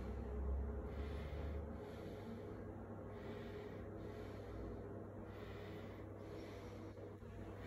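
A person's breathing close to the microphone, soft noisy breaths in and out, over a steady low hum; a low rumble in the first couple of seconds is the loudest part.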